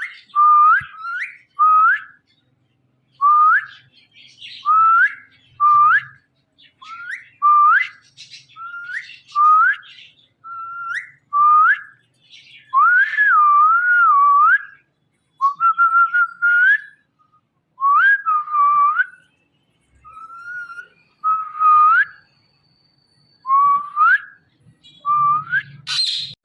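Indian ringneck parrot whistling: a long series of short, upward-flicking whistle notes, roughly one a second, with a few longer wavering whistles midway through.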